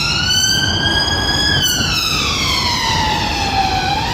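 Police car siren wailing. It rises for about a second and a half, falls slowly over the next two and a half seconds, and starts rising again at the very end, over a steady low rumble of street traffic.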